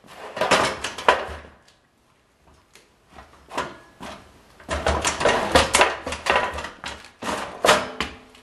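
Cast-iron radiator on a steel hand truck knocking and rattling as it is wheeled and shifted, in several irregular bursts of clanks.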